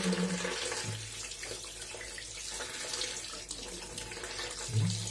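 Tap water running into a plastic basin of water in a sink, with splashing as raw fish are rubbed and rinsed by hand.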